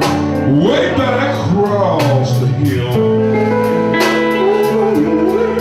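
Live electric blues band: electric guitar over a drum kit with cymbals, with a man's voice singing sliding, drawn-out notes.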